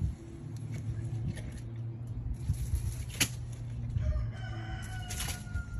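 A rooster crowing in the background, one long held call starting about four seconds in. A couple of sharp knocks are heard over a low steady hum.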